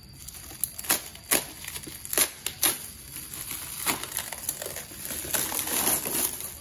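Clear plastic wrap and packing tape being cut and pulled off a cardboard-covered package: a handful of sharp crackles, then steady crinkling of the plastic film as it is peeled away near the end.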